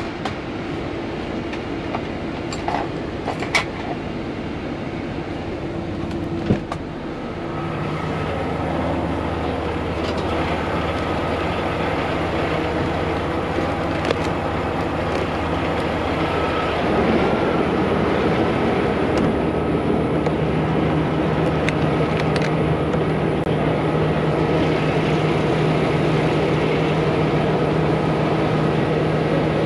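Semi-truck diesel engine idling steadily, getting louder about eight seconds in and again around seventeen seconds. A few sharp clicks and knocks come in the first seven seconds.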